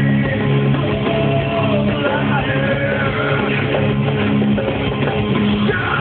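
Live rock band playing: sustained low guitar and bass notes with a melody line wavering above them, loud and steady.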